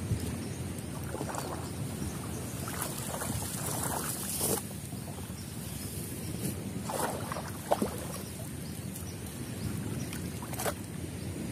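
Water sloshing and splashing as a person wades in shallow pond water, hauling up a fishing net, with a few sharper splashes spread through, over a steady low rumble.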